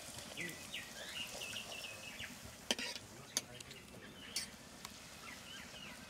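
Luchi deep-frying in a wok of hot oil, sizzling as a spatula presses and turns it, with a few sharp clicks. Birds chirp in the background.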